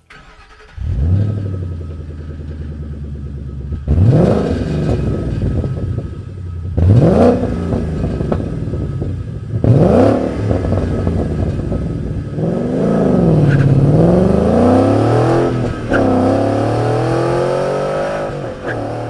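2011–2014 Ford Mustang GT's 5.0-litre V8 through a Borla Touring stainless cat-back exhaust: the engine comes in about a second in and idles with a deep note, then gives three quick revs, then longer revs that rise and fall. A deep, throaty, mellow note from large straight-through mufflers.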